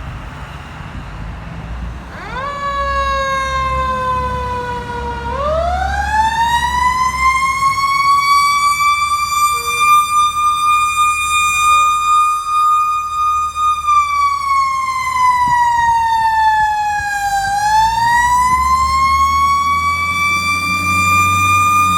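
Fire truck's mechanical Federal Q siren wailing. It comes in a couple of seconds in, winds up to a high steady wail, sags in pitch and winds back up near the end, with the truck's engine rumbling low underneath.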